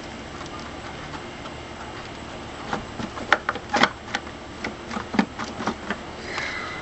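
Irregular sharp clicks and knocks of hard parts as the upper intake plenum of a 4.3 L Vortec V6 is worked loose and lifted off the engine. They start about three seconds in, after a steady low background hum, and die away near the end.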